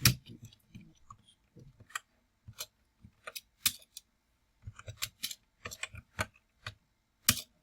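Computer keyboard typing: separate key clicks at an irregular pace, busier about five to six seconds in, as a command is typed into the command prompt.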